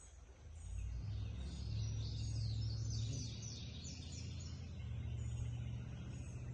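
A bird singing a run of quick, falling high chirps over a steady low rumble.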